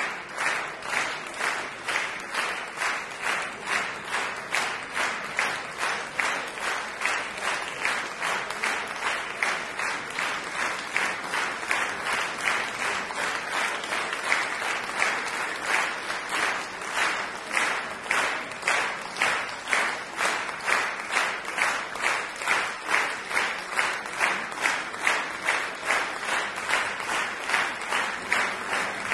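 Audience applauding in steady rhythmic unison, about two claps a second.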